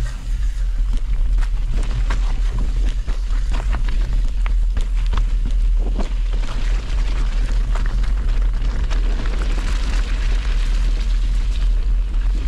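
Wind buffeting the microphone: a heavy, steady low rumble with irregular crackling on top.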